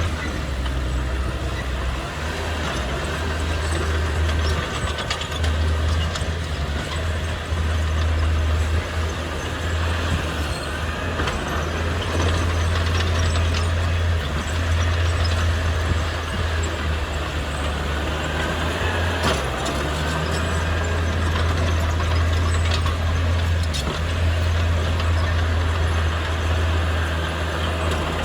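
Heavy diesel earthmoving machinery running steadily with a deep engine rumble, and a few short metallic knocks.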